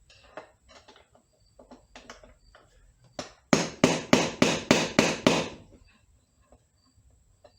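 Light clicks and taps of metal tools, then a quick run of about seven sharp hammer blows on a stuck C6 transmission part, roughly three a second, to knock it loose.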